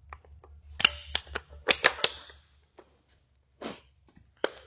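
Metal clanks and clicks of a hydraulic torque wrench and its socket being fitted onto a large cap nut. A quick cluster of knocks comes about a second in, then two single knocks near the end, over a low steady hum.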